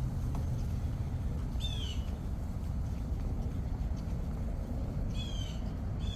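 A bird calling twice, each call a quick run of high chirps, about two seconds in and again near the end, over a steady low rumble.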